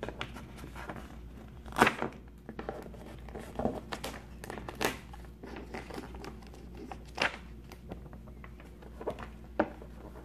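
Printed cardboard sleeve rustling and scraping as hands slide it off a boxed set, with a few sharper crackles along the way.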